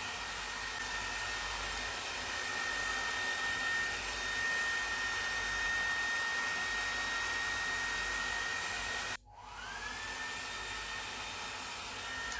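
Handheld hair dryer running steadily on wet hair, a hiss of blowing air with a steady whine. About nine seconds in it cuts out abruptly, then comes back with its whine rising as the motor gets back up to speed.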